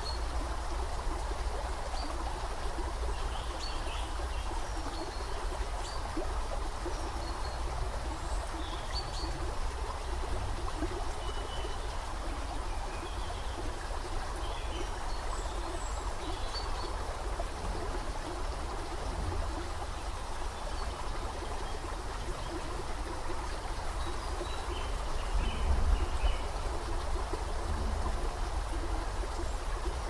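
Shallow woodland creek running steadily over sandy riffles, with faint bird chirps scattered throughout. A low rumble lies underneath and swells briefly about 26 seconds in.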